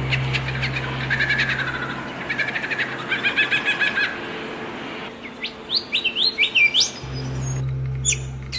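Several small songbirds chirping and trilling, with a run of quick rising whistled notes about halfway through. A steady low hum sits underneath for much of the time and starts and stops abruptly.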